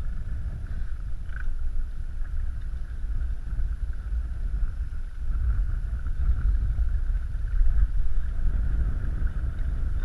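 Small boat motor moving a flats skiff: a steady low rumble with a thin, steady whine above it, getting a little louder about halfway through.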